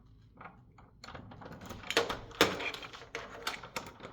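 Irregular scratching and clicking, sparse at first and then a quick, uneven run of sharp taps and scrapes from about a second in. The man recording takes it for rats scratching and chewing inside the walls.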